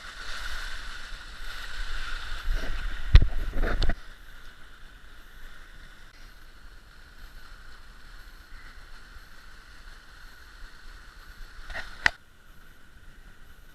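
Gentle creek flowing over shale, a steady rushing trickle. In the first four seconds a low rumble swells, with sharp knocks about three seconds in; a single sharp knock comes near the end.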